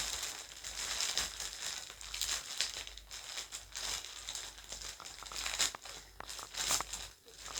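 Shipping package crinkling and tearing as it is opened by hand, with irregular crackles throughout.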